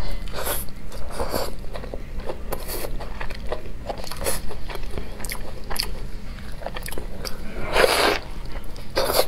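Biting into and chewing a large pan-fried chive pancake close to the microphone: a run of short mouth clicks, with a louder bite near the end.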